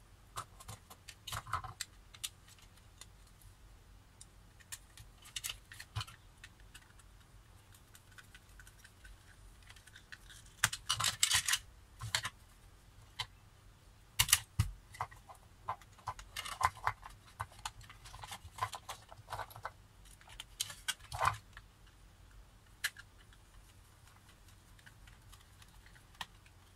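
Irregular clicks, taps and small plastic rattles of hands wiring a plastic wall switch, with clusters of busier handling noise. These include a red wire being stripped with an automatic wire stripper and a screwdriver working at the switch terminals.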